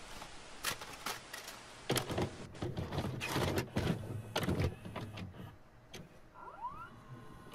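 A VHS tape deck's mechanism at work: a string of clicks and clunks over a low hum, with a brief rising whine near the end, as a cassette loads and goes into play.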